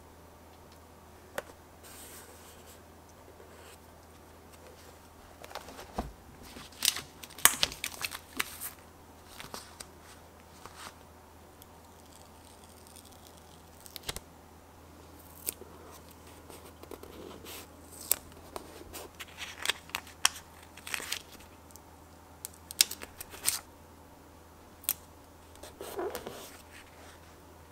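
Metal tweezers clicking and tapping as paper stickers are peeled off a sticker sheet and pressed down on a page, with short paper rustles and peeling sounds, in irregular clusters.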